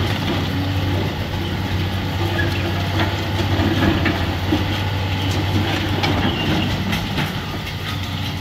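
Komatsu hydraulic excavator's diesel engine running steadily under demolition work, with scattered knocks and clatter of falling brick and debris.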